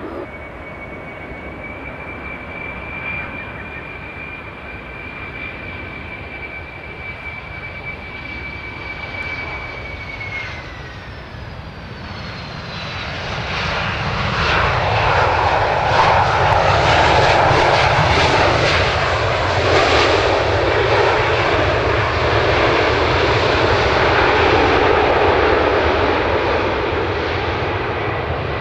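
Jet airliner engines on the runway. A steady high whine falls in pitch at about ten seconds in, then a much louder jet roar builds as a Boeing 737 passes close on its landing roll, easing slightly near the end.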